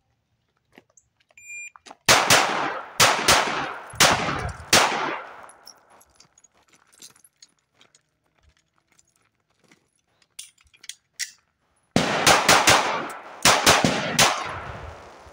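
A short beep, then a CZ P01 9mm pistol firing a quick string of about six shots, each with a ringing echo. Several seconds of small clicks follow during an emergency reload in which the magazine was slow to come out, then a second string of about six shots.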